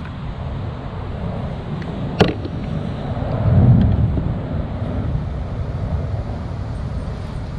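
Wind buffeting the microphone, a low, fluttering rumble that swells in a gust about three and a half seconds in, with one sharp click a little past two seconds.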